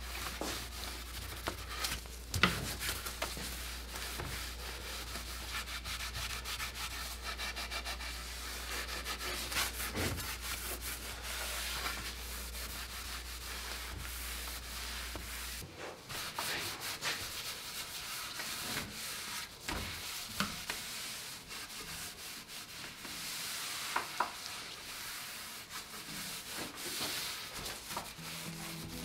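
A cloth rag rubbing and wiping over an oak rocking chair, taking off excess refinishing oil. There are scattered light knocks as the chair is handled.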